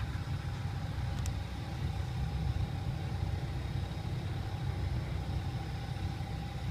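Heavy diesel engine idling steadily: an even low rumble with a faint steady hum above it.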